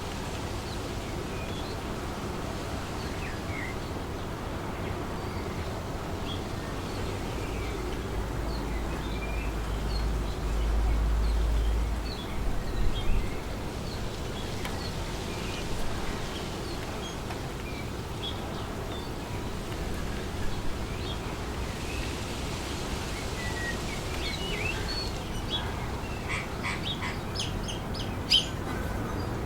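Wind blowing steadily through trees, with scattered short bird chirps and calls that grow busier near the end. A low rumble swells for a few seconds about eight seconds in.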